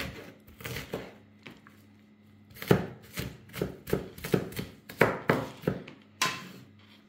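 Kitchen knife chopping onion finely on a wooden cutting board: a run of sharp knocks of the blade on the board, about four a second, with a short pause near the middle.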